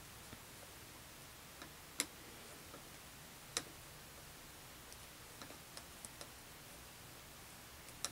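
Scattered small clicks and taps from handling small objects, two sharper ones about two and three and a half seconds in and a few fainter ones later, over a faint steady hiss.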